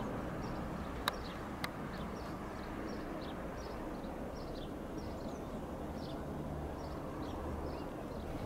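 Small birds chirping over a steady low rumble, many short high chirps a few times a second. Two sharp clicks come a little over a second in.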